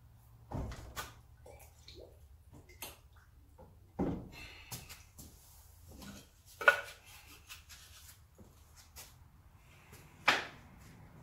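Workshop handling noise: scattered knocks and clatter of metal parts and wooden boards being moved and set down, with four louder clunks at about half a second, four seconds, just under seven seconds and ten seconds in.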